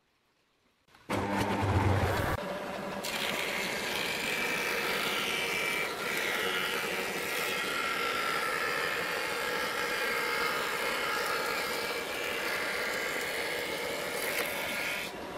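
Woodworking jointer starting up about a second in with a low rumble, then running steadily with a whine while a pallet-wood board is fed across its cutter head.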